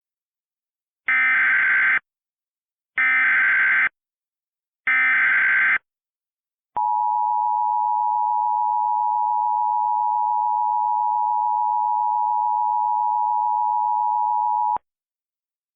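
Emergency Alert System header: three short bursts of SAME digital data, about a second apart, then the EAS attention signal, a steady two-tone 853/960 Hz tone held for about eight seconds that cuts off sharply. It marks the start of a new emergency alert broadcast.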